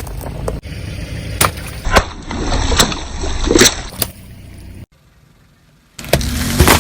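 Car tyre crushing soft-drink bottles: a string of sharp cracks and pops, with liquid splashing and gurgling out. The sound drops away suddenly about two-thirds through, then comes back loud near the end.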